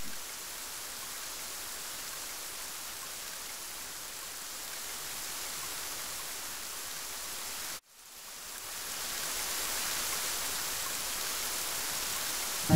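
Recorded rain: a steady hiss of falling rain. It cuts out abruptly about eight seconds in and swells back up over the next second or so.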